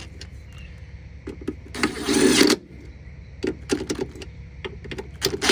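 Hands working on washer parts during a repair: scattered sharp metal clicks and knocks, with a brief harsh rasping scrape about two seconds in, over a steady low hum.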